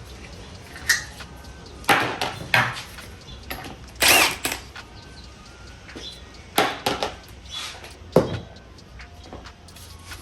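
Metal tools and gearbox parts knocking and clinking together, about half a dozen separate sharp hits with quieter handling noise between them. The loudest, about four seconds in, rings briefly.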